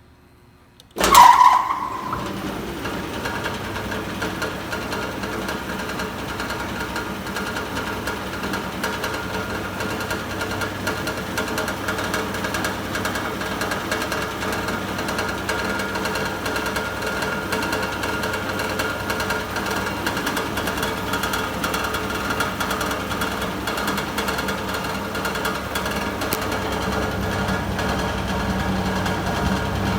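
Super Brush 36 single-brush sanding machine comes on suddenly about a second in with a brief ringing peak, then runs steadily with a continuous motor hum and the brush's noise.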